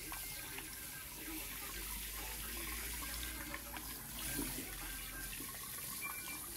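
Water spraying from a pull-out faucet spray head onto bare feet and splashing into a pedicure basin, a steady hiss with small splashes.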